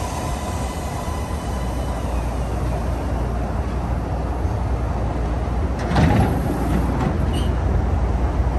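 MARTA rapid-transit train running into the station: a steady low rumble with a faint steady whine early on, and a short louder rush of noise about six seconds in.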